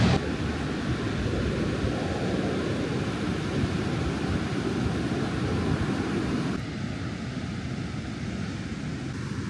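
Wind blowing across the microphone with the rush of surf breaking on a sandy beach, a steady noise heaviest in the low end. The sound shifts and drops a little about two-thirds of the way through.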